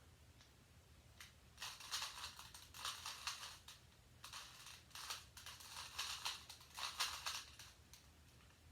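Plastic Rubik's cube layers being turned by hand: rapid clicking in several bursts with short pauses between them.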